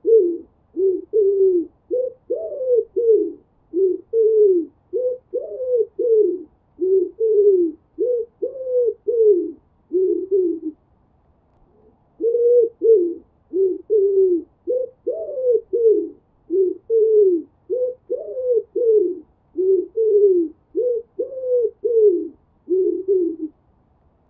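Pigeon cooing in a fast run of short notes, about one and a half a second, each dipping in pitch. The notes come in two long bouts, broken by a pause of about a second and a half near the middle.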